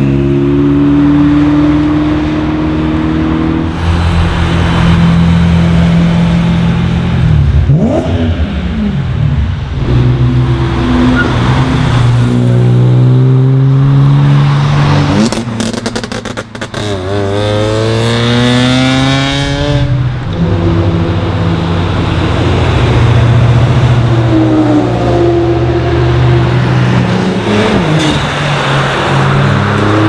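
A string of sports and tuned cars driving past one after another, their engines revving and accelerating hard through the gears, with engine notes rising and falling. About halfway through comes a cluster of sharp cracks, then a long rising run as one car pulls away.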